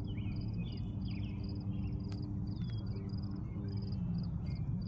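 Evening outdoor ambience: a cricket chirping in short, evenly spaced pulses about twice a second, with a bird's short chirps and slurred whistles over a steady low rumble.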